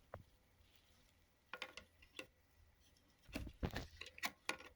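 Faint, scattered clicks and taps of small plastic parts of a TomTom Go 500 sat-nav being handled during reassembly, turning into a quicker run of clicks about three seconds in.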